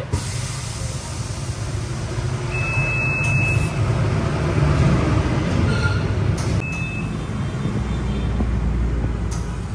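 Low, steady machinery rumble in a motorcycle workshop while the tyres are being inflated with nitrogen. A long electronic beep comes a few seconds in and a short one about seven seconds in, typical of a nitrogen tyre inflator signalling its fill.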